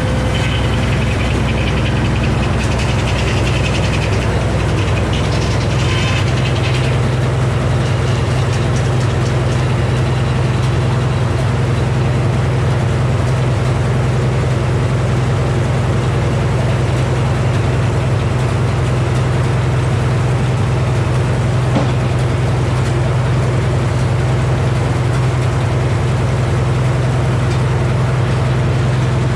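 Engine powering a Frick sawmill, running steadily at constant speed with no change in load.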